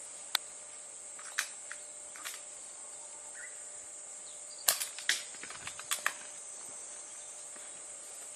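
Scattered sharp clicks and snaps, with a quick cluster of them about five to six seconds in, over a steady high-pitched insect drone.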